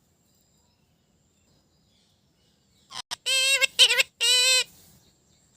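Near silence, then about three seconds in a pet parrot gives three or four loud, drawn-out wavering calls in quick succession.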